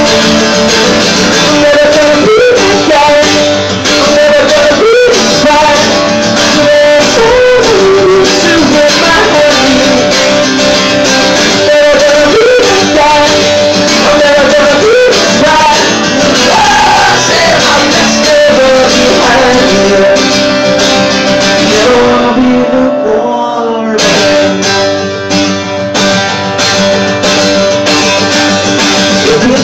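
Live solo performance of a man singing while strumming an acoustic guitar hard. The strumming briefly thins out about three-quarters of the way through, then comes back in full.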